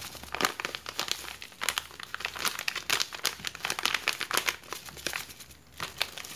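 Plastic crinkling and crackling from a salt packet being handled and a disposable plastic glove, in quick irregular crackles with a brief lull near the end.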